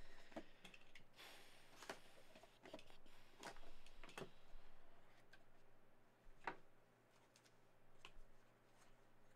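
Quiet handling of a small cardboard trading-card box: scattered taps and clicks with a short rustle about a second in, as the box is unwrapped and opened by hand.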